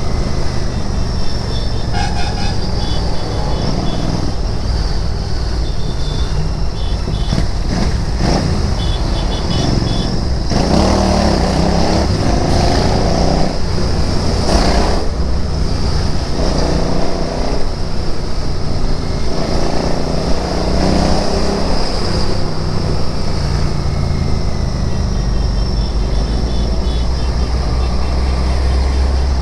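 Royal Enfield Interceptor 650's parallel-twin engine running under way through city traffic, with the engine note changing in the middle of the stretch as the rider works the throttle.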